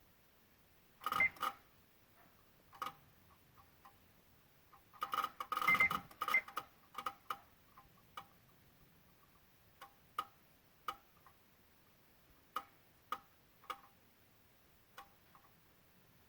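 Irregular sharp clicking from near the PCM and VSA control module of a 2016 Honda Odyssey with the engine off. The clicks come singly or in quick clusters, with a thicker run about five to six seconds in. It is a fault noise that comes together with the engine, VSA, LDW and FCW warning lights being on.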